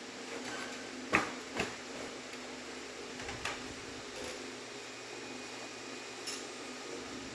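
A steady low hum with a few short, sharp clicks or smacks: a loud pair about a second in, then single ones about three and a half and six seconds in.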